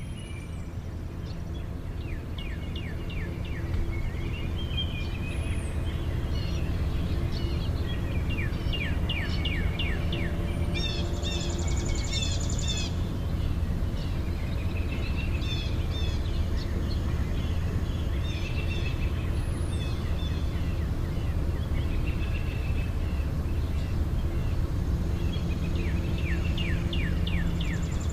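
Several birds calling and singing, with repeated chirps, fast trills and short falling whistles, over a steady low background rumble.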